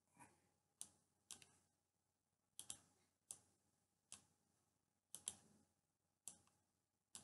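Faint, irregular clicks of a stylus tapping on a drawing tablet while writing, about a dozen of them, some in quick pairs, over near silence.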